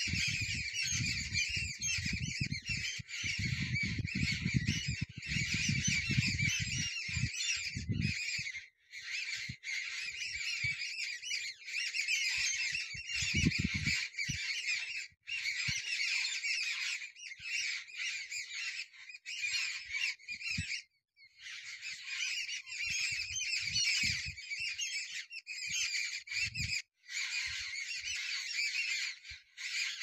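A flock of jungle babblers chattering: many harsh calls overlapping in a busy, continuous din, broken by brief pauses every few seconds. A low rumbling on the microphone runs under the first eight seconds.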